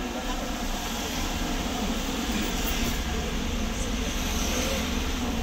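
Steady low rumble of street traffic, an even noisy background with no distinct events.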